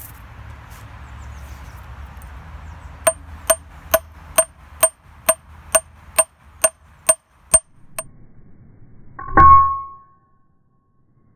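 Cold forging heavy-gauge fence wire on an old axe head used as an anvil: about a dozen light, ringing metallic taps, evenly spaced about two a second, then near the end one heavy hammer blow that clangs and rings for about half a second.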